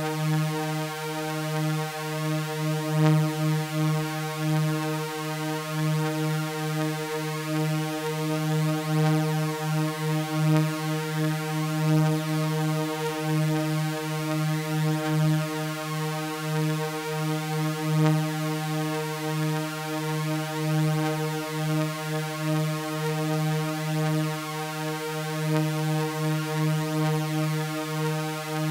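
Synthesized drone of layered sawtooth waves: one steady, buzzy chord with a slow, uneven wavering pulse.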